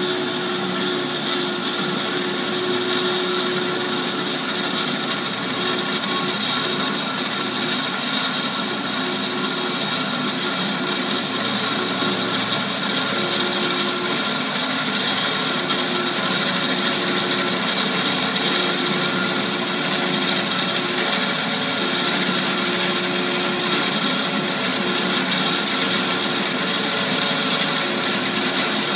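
Amada HA-250W automatic horizontal band saw cutting through metal bar stock dry, without coolant, under hydraulic feed: a continuous whine over a hiss, growing slightly louder through the cut.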